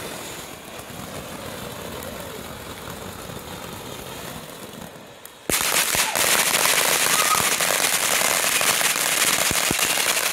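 Ground fountain fireworks spraying sparks. A steady moderate hiss comes first; about halfway through it jumps suddenly to a much louder, dense crackle full of sharp pops.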